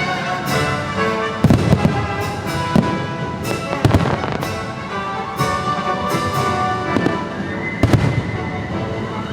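Fireworks shells bursting, several sharp bangs scattered through, over the fireworks show's music soundtrack.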